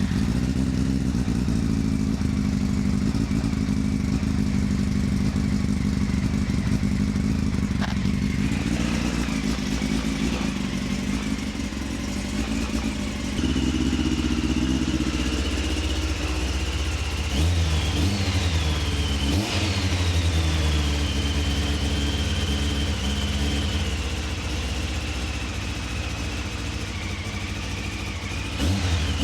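Honda CBR600 F3's inline-four engine running just after being started, the revs rising and falling a few times past the middle. A light ticking or tapping comes from a loose exhaust that needs tightening.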